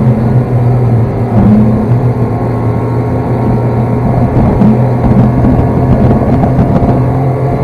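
Snowmobile engine running loud and continuous at a fairly steady speed.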